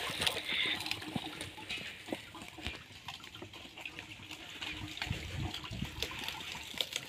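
Fresh sugarcane juice trickling from a hand-turned two-roller cane crusher into a bucket, with scattered clicks and a few soft knocks from the turning machine.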